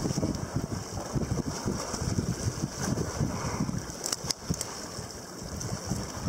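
Wind buffeting the microphone in uneven gusts over a steady high hiss, with a few short clicks about four seconds in.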